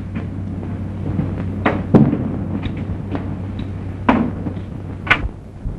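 Sharp knocks over the steady low hum and hiss of an old film soundtrack: two close together a little under two seconds in, then one about four seconds in and another a second later.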